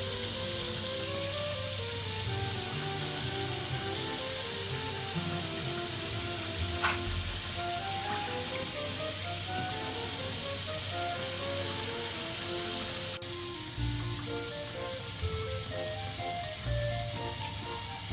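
Background music, a simple melody of single notes, over a steady hiss; the sound changes abruptly about two-thirds of the way through, where the hiss drops a little.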